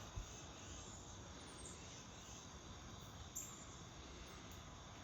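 Faint outdoor ambience of steadily chirping insects, with a few short high chirps and a soft low bump just after the start.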